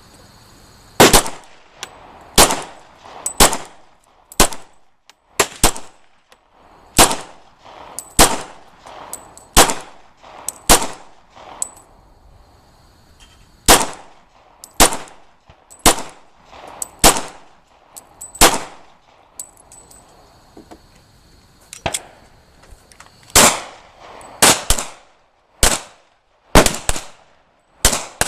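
Glock 22 RTF .40 S&W pistol fired in a string of about two dozen shots, roughly one a second, with a couple of short pauses between groups.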